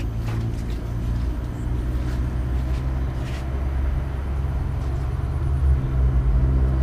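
Steady low rumble.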